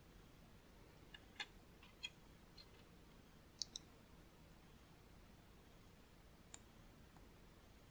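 Small plastic LEGO pieces clicking as they are handled and pressed together: several sharp, separate clicks scattered through, the loudest a quick pair about three and a half seconds in, over faint room hiss.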